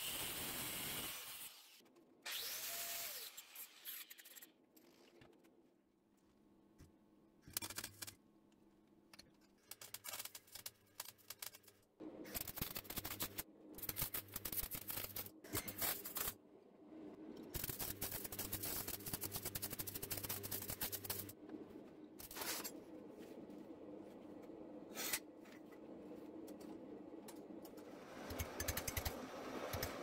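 Metal-cutting and welding sounds, broken up by edits. A small cut-off grinder cuts through stainless steel cutlery in the first second or so. Later comes stop-start MIG welding: dense crackle over a steady electrical hum, in several bursts of a few seconds each.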